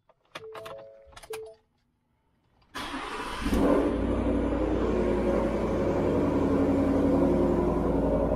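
A few short beeps, then a 2019 Ford F-150 cranks and fires about three seconds in on its first start. It settles into a steady idle with a low rumble through a Corsa cat-back exhaust in its Sport form, with the stock resonator still fitted.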